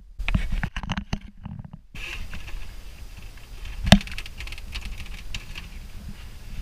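Electrical cables being pushed and pulled through a cramped wiring locker: an irregular patter of small clicks and rustles, with one sharp knock about four seconds in.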